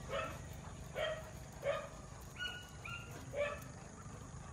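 A dog barking: about four short barks, irregularly spaced.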